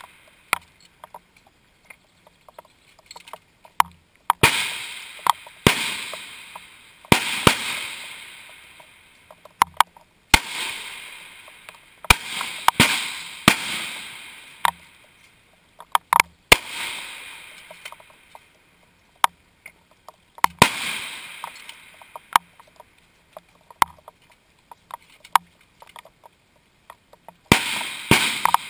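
Rifle shots along a long-range firing line, about ten over the span at irregular intervals. Each is a sharp crack followed by a long rolling echo down the range, with small clicks and knocks in between and a lull of several seconds before the last shot near the end.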